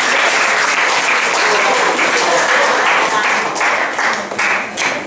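Audience applauding, thinning out into scattered separate claps near the end.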